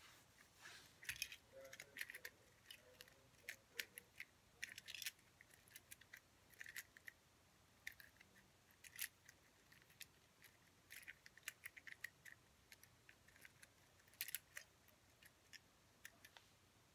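A plastic Rubik's cube being twisted quickly by hand: irregular flurries of sharp clicks as its layers turn.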